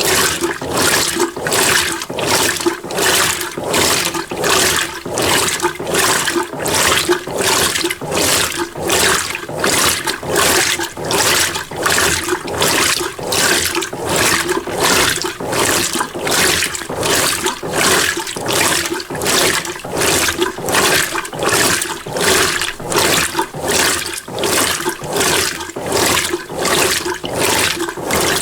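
Mueller Energy 8 kg top-load washing machine agitating a small load in water, a rhythmic sloshing that pulses about one and a half times a second as the wash action drives the water and clothes back and forth.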